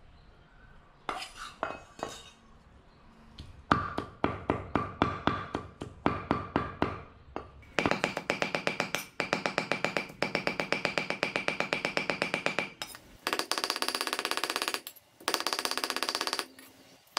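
Large kitchen knife chopping pork on a wooden chopping block, mincing it by hand. A few strikes come about a second in, then steady chopping at about four strokes a second. About 8 s in it becomes a very fast, higher-pitched run of chops, the sound of sped-up footage, with brief pauses near the end.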